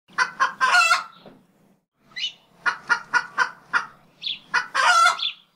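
Chicken clucking: a run of short clucks, with a longer drawn-out call about a second in and another near the end.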